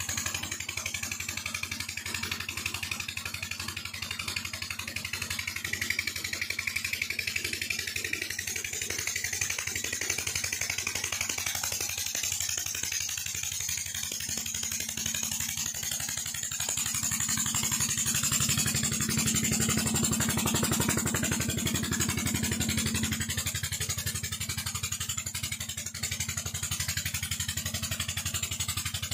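Petter diesel engine running steadily as it drives a tube well pump, a continuous low chugging, over a hiss of rushing water. The engine gets a little louder for several seconds past the middle.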